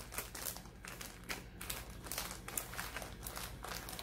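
Clear plastic packaging bags crinkling and rustling in irregular bursts as bagged silicone watch straps are handled and set down, over a faint steady low hum.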